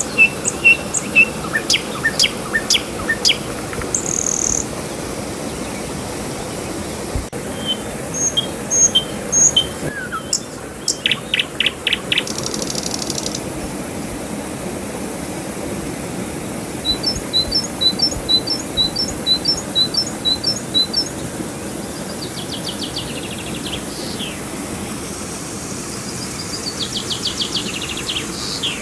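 Several songbirds calling and singing: quick chips, a run of paired notes, and falling trills. Under them runs a steady rush of flowing river water.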